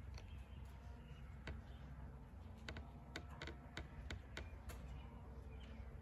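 Faint sharp clicks, single at first, then about three a second for a second or two around the middle, over a low steady hum. Faint bird chirps are heard too.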